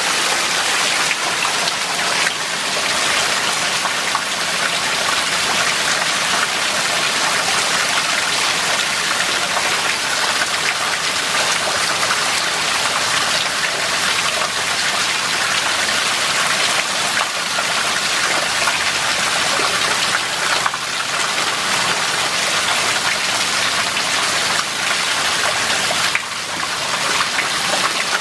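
Heavy rain, with a stream of water pouring off a roof edge and splashing steadily into a muddy puddle below.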